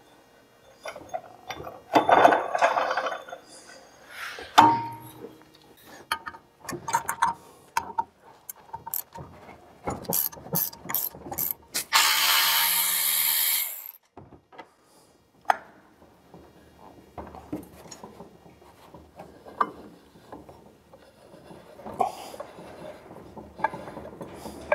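Metal tools clicking and clattering on a snowmobile secondary clutch, then a cordless ratchet runs for about two seconds near the middle, running out the bolts on the clutch's helix.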